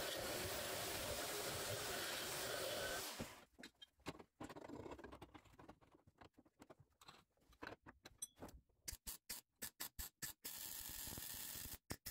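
Corded electric drill running with a rotary burr, milling out a bolt hole in a steel reinforcement plate, stopping about three seconds in. After that a socket ratchet clicks in short irregular runs as the bolt through the plate is tightened.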